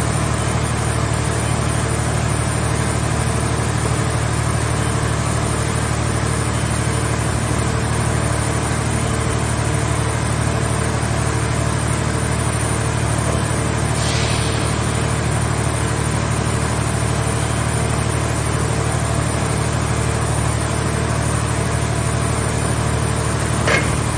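Car-body baling press running with a steady engine drone, with a brief hiss about fourteen seconds in and a sharp click near the end.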